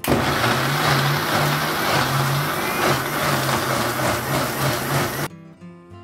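Electric mixer grinder running at full speed, blending cooked tomato and onion masala into a purée in its jar. The motor starts abruptly and cuts off about five seconds in.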